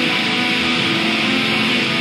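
Metal music led by strummed electric guitars in a dense, steady wall of sound with no breaks.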